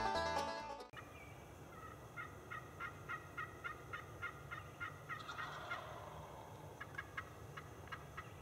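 Turkey yelps played on a friction pot call worked with a wooden striker: a run of about ten short, evenly spaced yelps, about three a second, then a brief second run near the end. The calls are faint.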